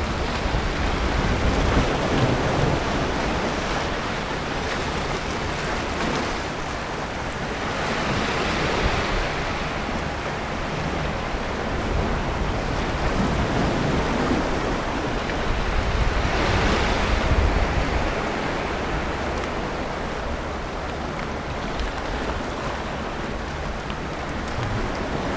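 Sea surf washing onto a beach: a steady wash of waves, with two waves breaking more loudly about eight and seventeen seconds in.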